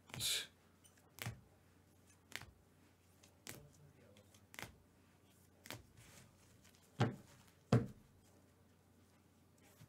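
Rigid plastic card holders clicking against one another as trading cards are taken one at a time from a stack and set down, about one click a second. There is a short scraping rustle at the start and two louder clacks near the end.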